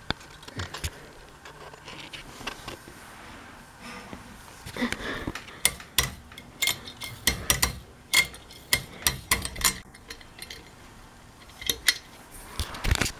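Hard parts of a ceiling fan and its light fitting being handled: a quick series of clicks, clinks and knocks, busiest from about five to ten seconds in and again near the end.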